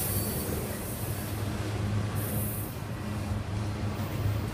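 Union Pacific freight train's autorack cars rolling past, a steady low rumble of steel wheels on rail, with a brief high hiss about two seconds in.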